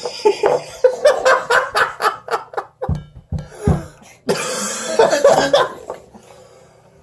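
A man's coughing fit: a quick run of repeated coughs, then a longer bout a little past the middle, mixed with laughter, dying down near the end.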